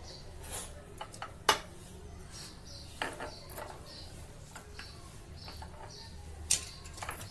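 Kitchenware being handled and set down: scattered light clinks and taps, with a sharper knock about a second and a half in.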